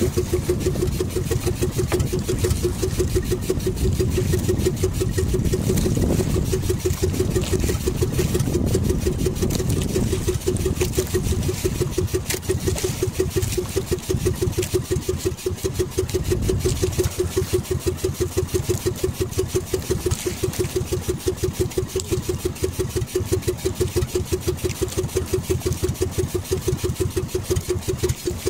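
Small outrigger boat engine running steadily at low revs, a rapid even putter, over a low rumble of wind and water.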